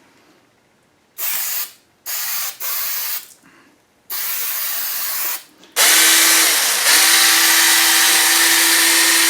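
Aerosol release oil hissing onto a chainsaw chain in four short spray bursts. Then the small electric chainsaw runs with a steady whine, stopping briefly once and starting again, its chain freshly oiled.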